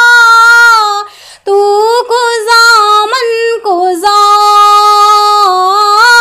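A woman singing a naat solo, with no instruments. A long held note breaks for a breath about a second in, then she sings ornamented phrases with sliding pitch.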